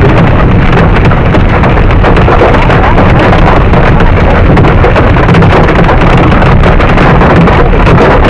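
Hail drumming on a car's roof and windscreen, heard from inside the car: a loud, continuous clatter of countless hailstone impacts with no let-up.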